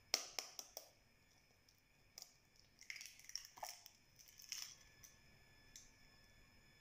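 Hen's eggs being cracked on the rim of a mixing bowl: a few quick sharp taps near the start, then the shell crackling as it is broken and pulled apart, about three to four seconds in.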